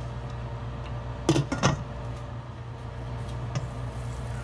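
Two quick knocks against a stainless steel cooking pot about a second and a half in, over a steady low hum.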